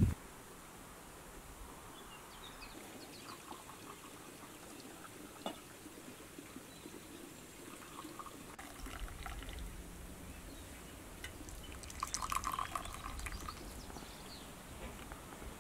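Tea, then hot water from a kettle, being poured into small tea glasses: a faint trickle of liquid with a few light clicks.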